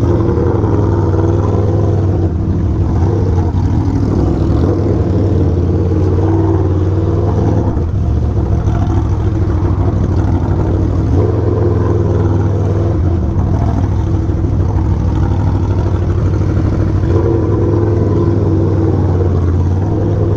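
Aprilia Tuono V4's V4 engine running at low revs through an aftermarket SC-Project GP exhaust while riding in slow traffic. The engine note holds mostly steady, with small changes in throttle a few times.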